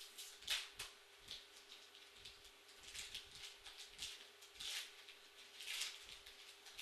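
Faint, irregular crinkling and rustling of a Magic: The Gathering booster pack wrapper and its cards being handled, with a steady low hum underneath.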